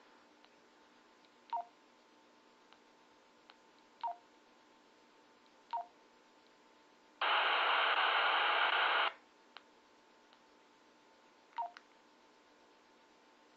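Handheld two-way radio giving four short two-note beeps, each stepping down in pitch, spaced a few seconds apart, with faint clicks between. In the middle, a loud burst of static hiss lasts about two seconds and cuts off sharply.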